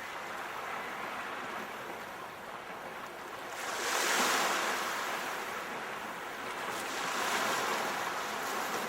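Sea waves washing in, a steady rushing that swells louder twice, about four seconds in and again near the end.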